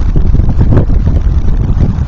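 Wind buffeting the microphone: a loud, uneven low rumble that swells and drops in gusts.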